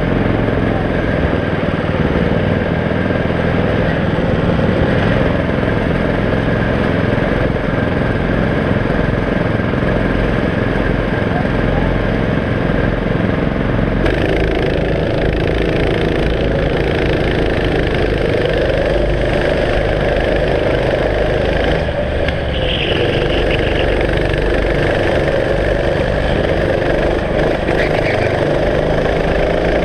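Racing kart engine running hard on track, heard from a camera mounted on the kart, with another kart's engine close ahead. The engine pitch rises near the end as the kart accelerates out of a corner.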